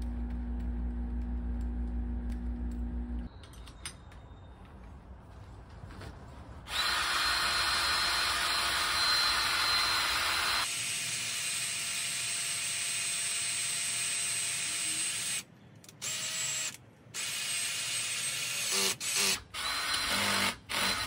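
A steady low hum, then a cordless drill with a spade bit boring a hole into PVC pipe: a loud motor whine with cutting noise for several seconds. Near the end it stops and starts again several times in short bursts.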